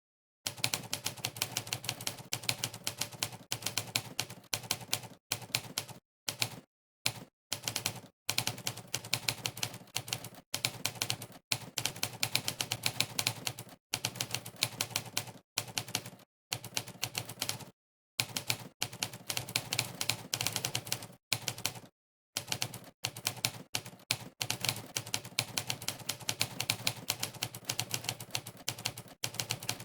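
Fast, continuous typing heard through Monkeytype's sampled 'typewriter' keystroke sound: a rapid stream of typewriter key-strike clicks, one per key pressed. It starts about half a second in and is broken by several brief pauses of dead silence.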